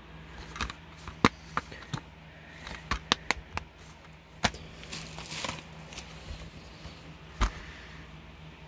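Plastic Blu-ray cases being handled: a string of sharp clicks and snaps as an open case is shut and put aside and the next one picked up, with a brief rustle in between.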